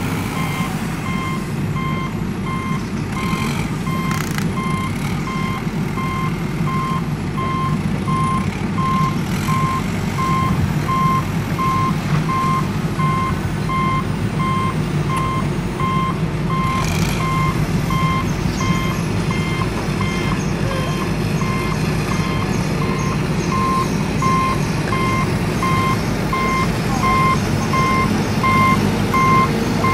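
A toy construction vehicle's electronic sound effect: a steady run of short, evenly spaced reversing-alarm beeps over a steady low hum.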